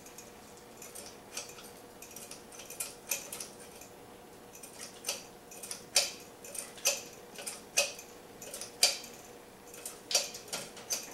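Irregular light metallic clicks and clinks of hands working in the engine bay of a fuel-injected small-block Chevy while it is primed with fuel by squirt bottle before a start attempt. A faint steady hum runs underneath, and the sharpest clicks come about six and nine seconds in.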